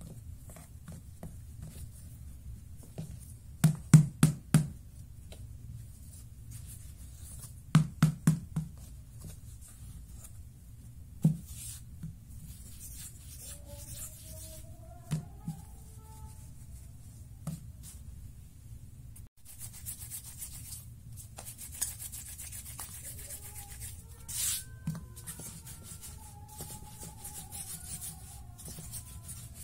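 Hands rubbing and rolling simit dough on a floured wooden board. Several sharp knocks on the board come in two quick clusters about four and eight seconds in, then single knocks now and then.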